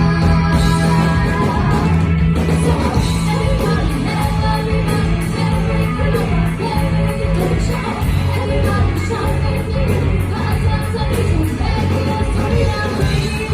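Live rock band playing loudly, with a sung vocal over electric guitar and a heavy, steady bass line, heard in a large hall.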